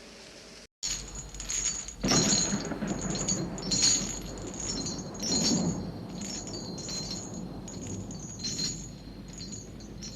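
A sudden cut under a second in, then chimes tinkling again and again at uneven intervals, bright and high, over a steady low rumble as part of a haunted-house sound effect.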